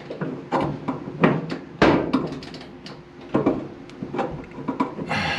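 Irregular sharp clicks and knocks of a plastic retainer clip being worked onto a dryer drum roller's metal shaft, the loudest knock nearly two seconds in.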